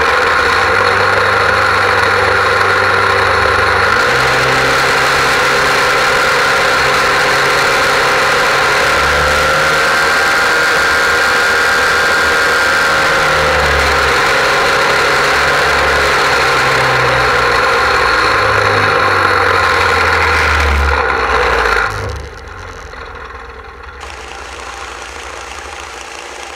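Portable fire-sport pump engine running at full throttle, driving water through charged hoses to the nozzles, its pitch wavering slightly. About 22 seconds in the revs drop away and it runs on much quieter.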